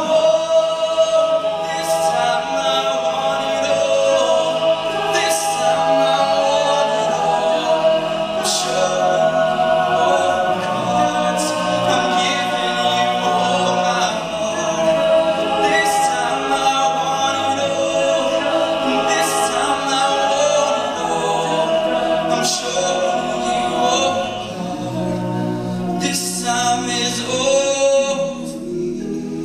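All-male a cappella group singing in close harmony, a lead voice over the backing voices of the other singers.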